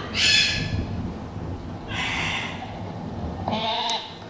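Two short breathy huffs from a Bouvier dog, then near the end a single wavering sheep bleat played through the television's speakers.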